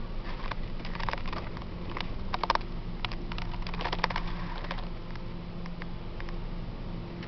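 Raindrops pattering on a vehicle's windshield and roof, heard from inside the cab as irregular light ticks over the low, steady hum of an engine.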